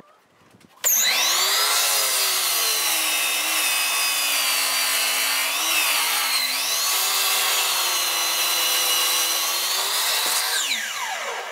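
Ridgid miter saw starting up about a second in and running with a steady high whine while its blade crosscuts an old 2x12 board, the pitch dipping briefly partway through. Near the end it is switched off and spins down with a falling whine.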